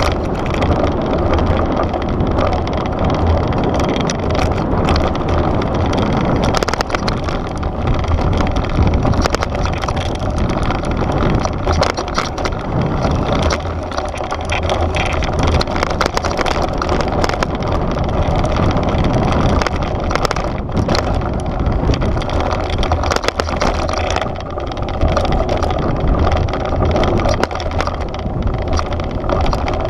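Devinci Wilson downhill mountain bike descending a loose, rocky dirt trail: knobby tyres crunching over dirt and stones, the bike rattling with many small knocks over the bumps, and wind buffeting the microphone.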